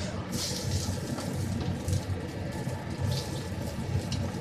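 Commercial kitchen noise: a steady low rumble, with bursts of hissing about half a second in and again around three seconds in.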